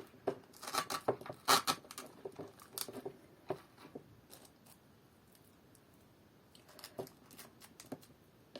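Light rustling and clicking of fir sprigs being handled and pushed into floral foam. The sounds come thick through the first few seconds, then it is mostly quiet, with a few clicks about seven seconds in.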